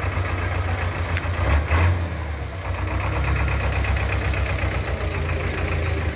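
Belarus tractor's diesel engine running under load while hauling a heavily loaded trailer, a steady low engine note that swells briefly about one and a half seconds in.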